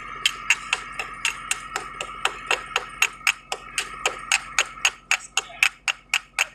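Rapid, evenly spaced tapping of a hammer on metal, about four to five strikes a second.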